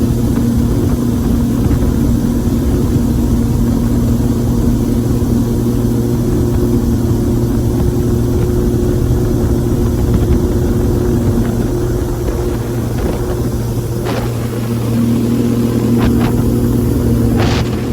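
An engine running steadily at a constant pace, easing slightly around two-thirds of the way through and then picking back up. A few short, sharp clicks or knocks come near the end.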